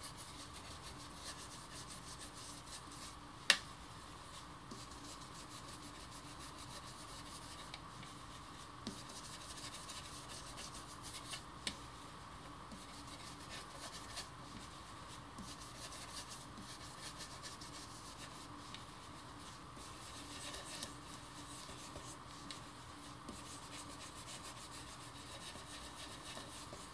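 Blending brush scrubbing ink onto cardstock over a stencil, a faint steady rubbing, with one sharp click about three and a half seconds in.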